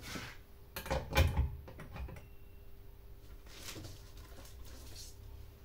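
Clicks and knocks of chainsaw parts being handled, with a cluster of sharp knocks about a second in, then quieter fiddling.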